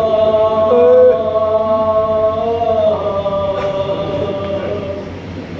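A man chanting a noha, a Shia lament, into a microphone. He holds one long note for nearly three seconds, then starts another that slowly fades.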